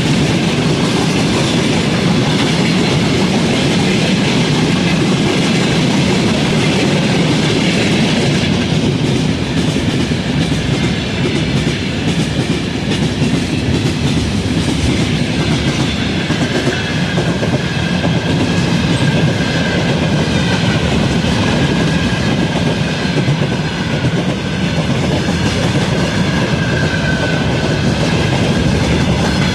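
Freight wagons rolling past, their wheels knocking rhythmically over the rail joints. From about halfway on, a faint thin whine rides over the clatter.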